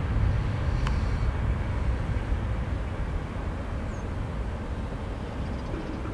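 Jet engines of a Boeing 737-800 at takeoff thrust, heard from across the airfield: a low, steady jet noise that slowly fades as the airliner lifts off and climbs away.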